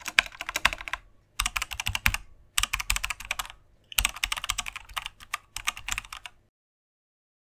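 Typing sound effect: keys clicking rapidly in several bursts with short pauses between them, stopping about six and a half seconds in.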